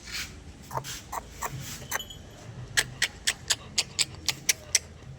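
Pet dog panting: short, quick breaths, running at about three to four a second through the middle.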